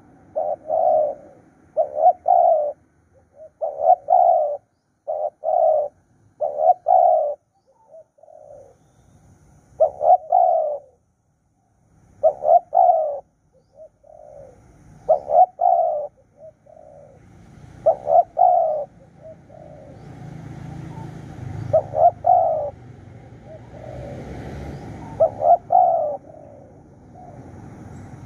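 Spotted dove cooing repeatedly, short phrases of two or three coo notes every second or two, with longer pauses later on. A low background rumble rises and fades in the second half.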